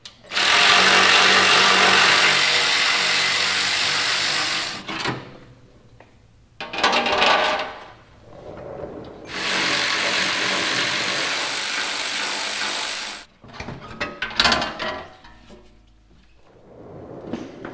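Battery-powered cordless ratchet on an extension spinning out the 12 mm skid plate bolts in three runs, of about four seconds, a second and four seconds. Near the end come a few knocks and some light clatter as the skid plate is lowered.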